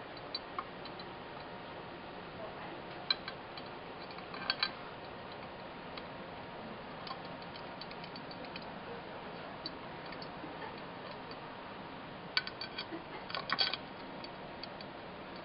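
Light clicks and taps of the mounting pins against the glass plate as they are threaded in by hand. There is one click about three seconds in, a pair a moment later and a quick cluster near the end, over a steady low hiss.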